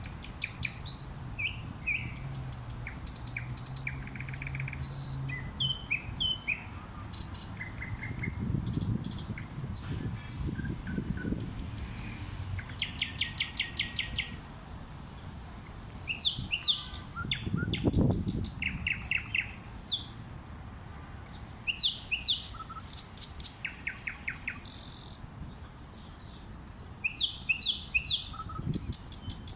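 Thrush nightingales singing: phrases of clear whistled notes alternating with fast, dry rattling trills, one phrase after another, over a low city rumble that swells a few times, loudest about eighteen seconds in.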